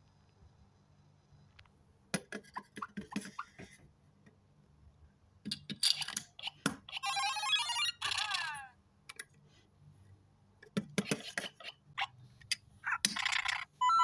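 LEGO Super Mario interactive figure playing electronic game sound effects from its built-in speaker: a fast warbling jingle with sweeping tones midway and short beeps near the end. Between them come light clicks of plastic power-up pieces being pulled off and snapped on.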